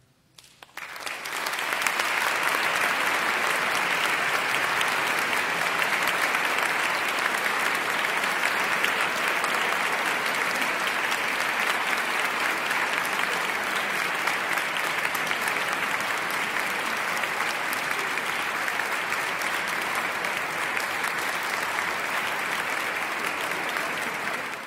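Audience applause: a few scattered claps about half a second in, building within about a second into steady clapping.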